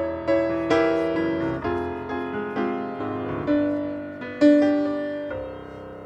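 Grand piano played slowly, melody notes and chords struck and left to ring, with a loud chord about four and a half seconds in that dies away.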